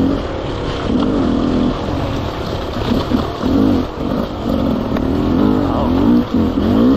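Enduro dirt bike engine heard from on board, revving up and down with the throttle, its pitch rising and falling in quick repeated surges.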